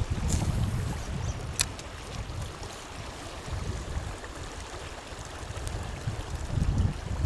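Wind buffeting the microphone over the rush of the river. The gusts ease off in the middle and build again near the end, and there is a sharp click about one and a half seconds in.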